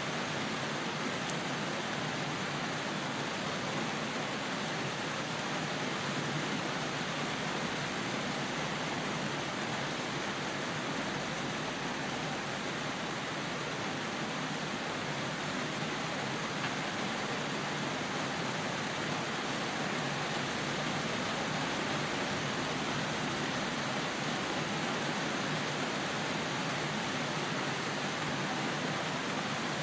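Steady heavy rain with an even hiss and no single drops or thunder standing out.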